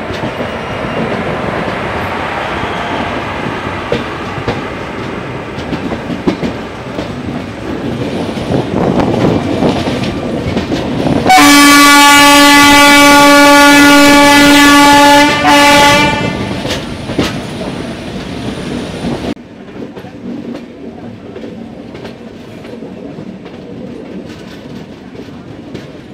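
Express passenger train running, with wheel clatter on the rails, heard close from an open coach doorway. About eleven seconds in, an electric locomotive's horn sounds one long, very loud blast of about four seconds, then a short second blast right after. The running noise drops sharply about nineteen seconds in.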